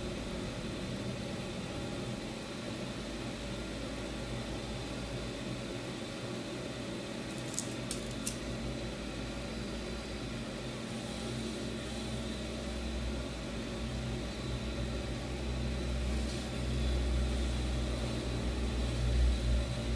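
Steady background hum with a thin high whine, a few light clicks about eight seconds in, and a low rumble that grows louder in the second half.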